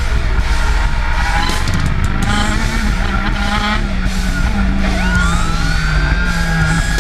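Racing go-kart engine heard from onboard, its pitch changing with the revs through the corner; about five seconds in the note starts climbing steadily as the kart accelerates.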